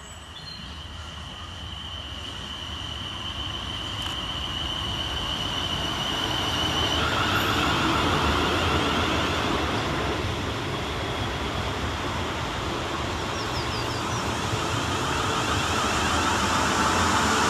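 Class 450 Desiro third-rail electric multiple unit arriving: a thin high whine from its traction equipment over wheel and rail rumble that grows louder. About seven seconds in, the whine turns warbling.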